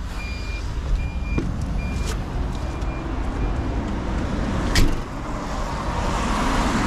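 Roadside vehicle ambience: a steady low rumble of idling truck and traffic, with a high warning beep repeating a little more than once a second and fading away over the first few seconds. A single sharp knock, the loudest sound, comes about five seconds in, and the rush of a passing vehicle builds near the end.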